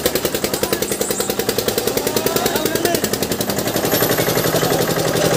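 Fast, even mechanical clatter from a fairground ride's machinery, about ten beats a second and unchanging, with faint voices of riders behind it.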